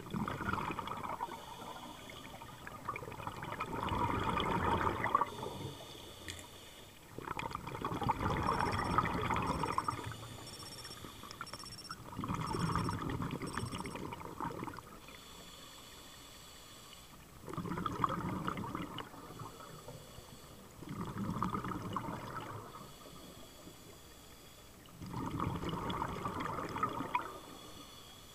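Scuba diver breathing through a regulator underwater: bursts of exhaled bubbles about every four seconds, each lasting two to three seconds, with quieter inhales between.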